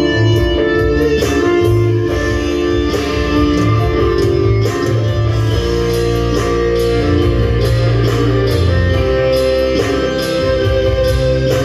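Loud amplified instrumental music: a guitar-like melody over a steady bass line and a drum beat, with no singing.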